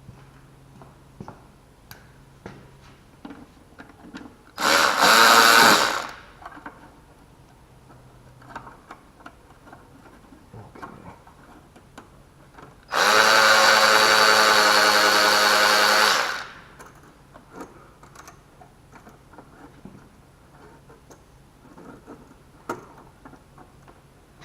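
A power drill spins twice while the fuel filter clamp is being taken off: a short burst about five seconds in, then a longer steady run of about three seconds near the middle. Light clicks and knocks of tool handling sound between the runs.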